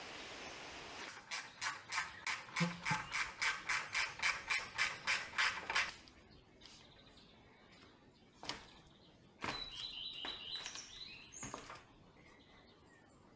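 Hand ratchet wrench being worked in quick, even strokes, about four clicks a second for around five seconds, then stopping. A couple of single knocks follow later.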